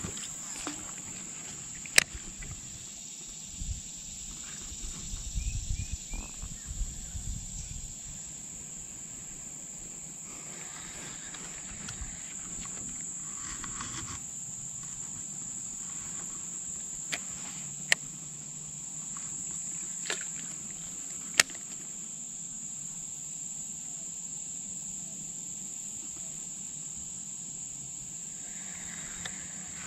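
A steady high-pitched insect chorus, with a handful of sharp clicks scattered through and a brief low rumble about five seconds in.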